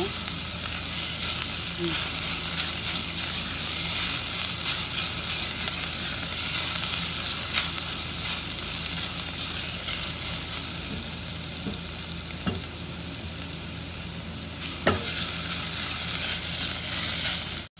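Sliced onions and green bell pepper sizzling in hot oil in a stainless steel pot, stirred steadily with a silicone spatula that scrapes and taps against the pan. A sharper knock sounds near the end.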